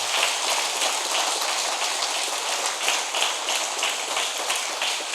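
Congregation applauding: dense clapping from many hands, holding steady throughout.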